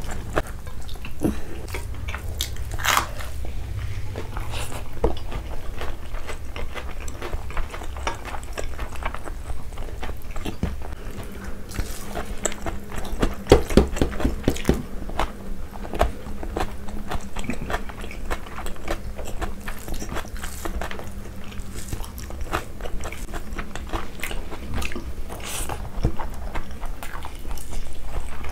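Close-miked eating sounds: chewing and biting mouthfuls of rice with chicken liver and egg curry eaten by hand, with crisp crunchy bites of raw salad vegetables such as cucumber and green chilli.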